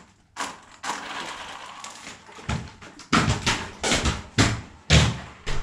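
Small electric RC quad bike whirring as its tyres scrabble, then a run of sharp clattering knocks from about halfway in, its body and wheels hitting the stair steps as it climbs and tumbles.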